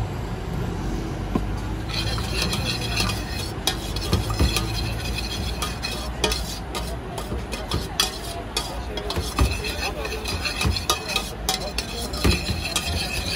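Long metal spoon stirring corn kernels in a stainless steel saucepan. It scrapes and clinks against the sides of the pan over and over, and the metal rings. A steady low hum runs underneath.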